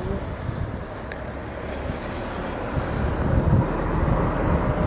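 Steady low rumble of a moving vehicle's motor with wind buffeting the microphone, growing a little louder from about three seconds in.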